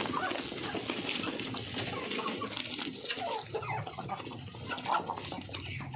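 A flock of hens clucking continuously in many short, overlapping calls as they crowd in to feed on thrown pieces of roti.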